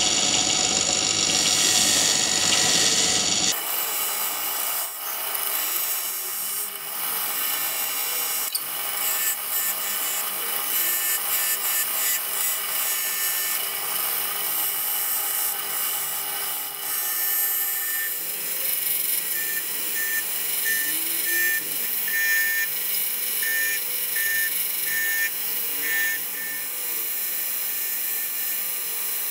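Bench grinder wheel grinding the steel blade of a pair of scissors for about three and a half seconds, then cutting off abruptly. After that comes a quieter, thinner scraping of steel, with short high chirps repeating in the later part.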